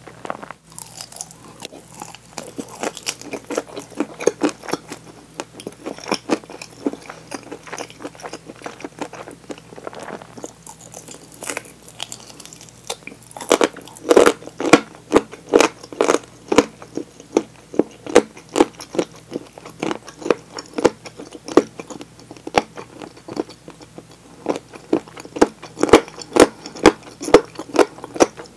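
Close-miked crunching and chewing of a crisp fried chicken drumstick. The chewing is soft at first, and from about halfway it turns into loud, crunchy bites and chews at roughly two a second.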